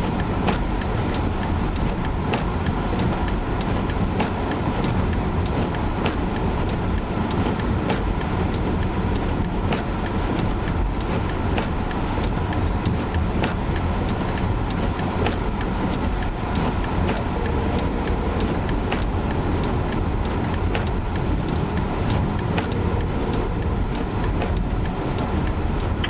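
Steady road and engine rumble inside a Chevrolet Malibu Classic's cabin, driven through a blizzard, with many sharp, irregular ticks over it.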